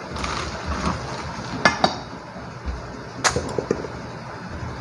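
A head of napa cabbage being handled on a plastic cutting board: leaf rustling with several sharp crisp cracks, a pair about two seconds in and a few more after three seconds.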